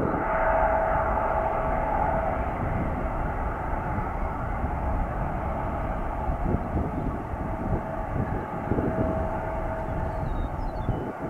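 Boeing 757-300 jet engines at taxi power: a steady rush of jet noise over a low rumble, with a steady whine that fades after about two seconds and comes back for a few seconds later on.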